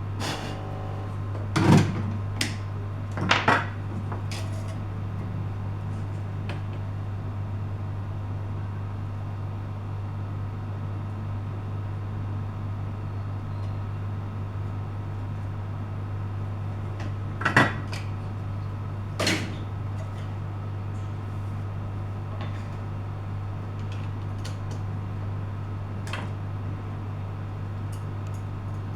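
Steady low hum with a handful of sharp clicks and knocks: a few close together near the start, one pair over half-way through, and one more near the end.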